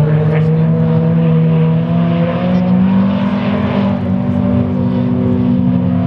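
Car engine running at steady revs, with its pitch drifting only slightly.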